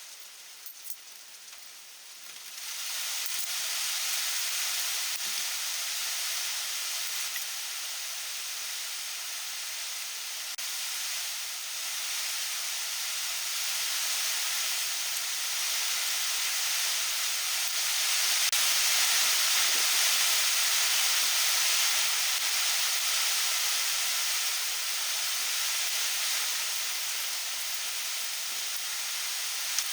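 Heavy rain falling, then a loud steady hiss sets in about two and a half seconds in and runs on over it, swelling slightly midway.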